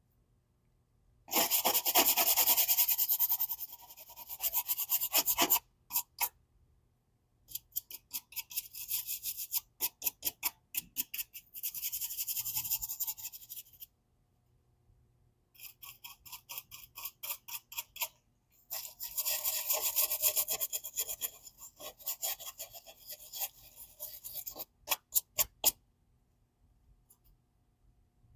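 Laptop back lid being scrubbed by hand to get the dust off, in quick back-and-forth strokes. There are four bouts of scrubbing with short pauses between them, the last ending with a few single strokes.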